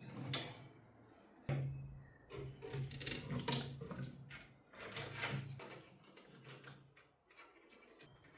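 Clicks, knocks and scraping of computer parts being handled and fitted during a PC build, with a low hum in three short stretches.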